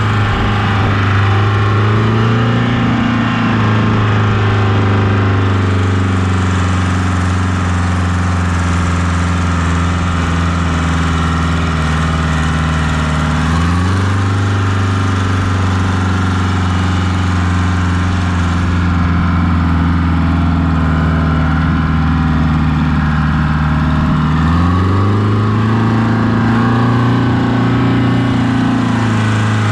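Oliver tractor's diesel engine running steadily under way. Its pitch shifts about halfway through and again near the end as the engine speed changes.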